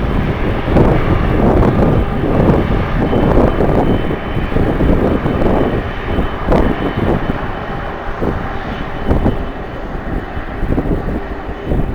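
Jet airliner engine noise mixed with heavy wind buffeting the microphone in irregular gusts, with a faint high whine for a couple of seconds in the middle.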